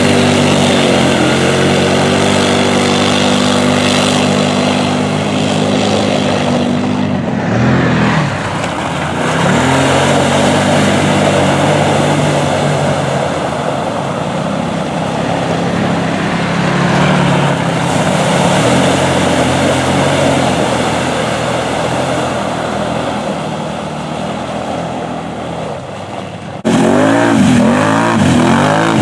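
Side-by-side UTV engine running at high revs as it ploughs through a mud bog, with a steady hiss of spraying mud and water over it. Near the end it gives way suddenly to a quad ATV's engine, louder, its pitch swinging up and down as the rider works the throttle in the mud.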